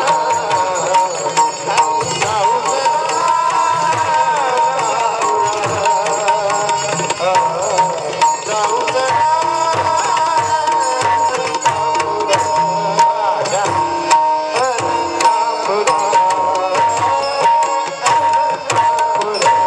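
Marathi devotional bhajan music: Indian hand drumming with a dense run of sharp strokes over a steady held note, with a wavering melodic line above it.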